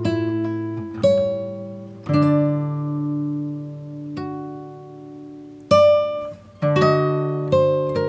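Background music on an acoustic guitar: slow plucked chords that ring and fade, then quicker single notes near the end.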